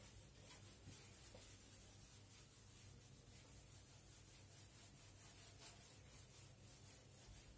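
Faint rubbing of a whiteboard being wiped clean, in repeated strokes, over a low steady hum.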